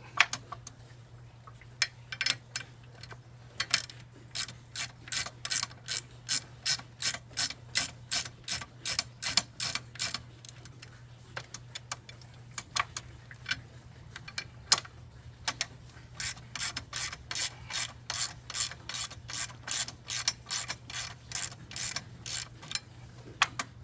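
Socket ratchet wrench clicking as it turns a motorcycle crash bar's mounting bolt, in runs of quick clicks at about three a second with short pauses between them.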